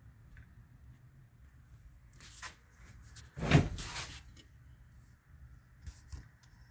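Tools and metal parts being handled: a short scrape, then a heavy knock with a brief rattle about three and a half seconds in, and a couple of light clicks near the end.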